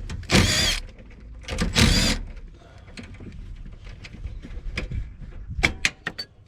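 Mechanical handling noise as fasteners and a connector clip are worked loose on a hybrid car's high-voltage IMA battery: two short rasping bursts of about half a second each, then a quick run of sharp clicks near the end.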